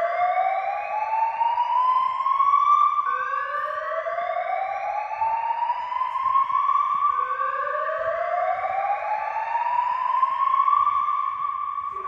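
Civil defence warning siren sounding a repeated rising electronic tone: long upward sweeps, a new one starting every three to four seconds, each climbing from low to high and holding at the top as the next begins.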